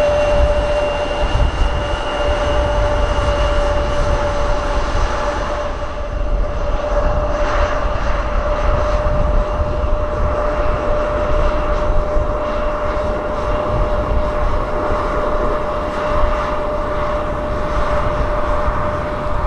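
Regional jet turbofan engines running: a steady whine over a low rumble and rushing noise. A higher whistle fades out after about four seconds, and the rushing noise grows in the second half.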